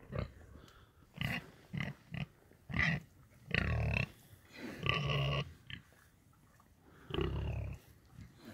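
Pig grunting: a run of short grunts every second or so, with a few longer drawn-out ones.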